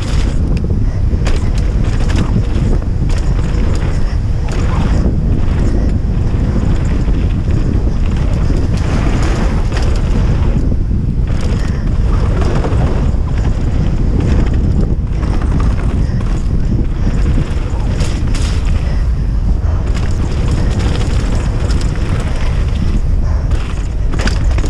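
Wind buffeting the microphone of a mountain biker's action camera during a fast downhill run, a loud, constant low rumble. Over it come frequent knocks and rattles from the bike running over gravel, a wooden berm and roots.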